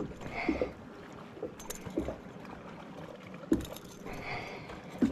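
Small waves lapping and slapping against the hull of a bass boat, in short, soft knocks about once a second with a light swish of water between them.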